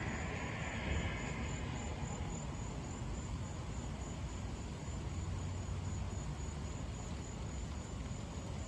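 Insects chirping steadily, a high, evenly pulsing trill, over a low steady rumble of outdoor background noise.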